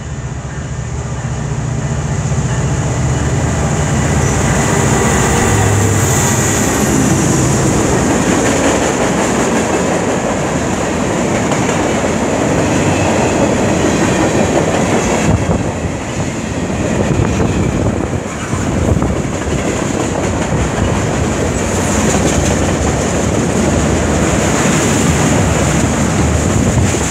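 CN freight train cars rolling past at close range: a continuous rumble of steel wheels on rail with a clickety-clack over the rail joints, and a thin, steady, high wheel squeal above it.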